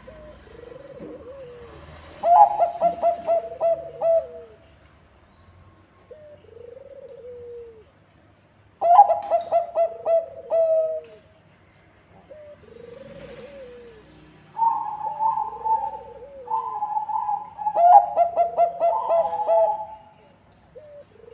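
Bangkok-strain zebra dove (perkutut) singing: three phrases of rapid staccato cooing notes, with softer single arched coos in the gaps between them.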